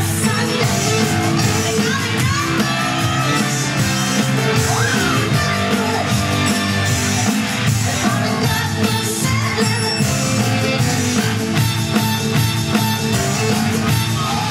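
Upbeat Motown-style song with a lead vocal over a steady beat.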